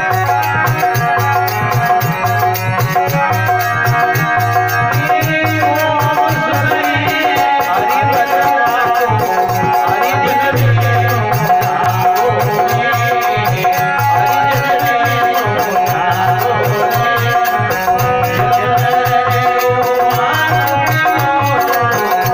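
Rajasthani devotional bhajan music: a harmonium holding chords and melody over a dholak beating a steady, rhythmic pattern.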